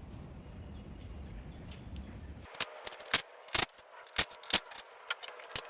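Sharp, irregular metallic clinks, about a dozen in the last three seconds, of hand tools and wheel fasteners handled during removal of an ATV wheel. Before them there is only a low steady background noise.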